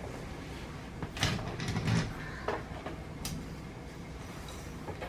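A few light knocks and clicks of things being handled and set down, each one short and sharp.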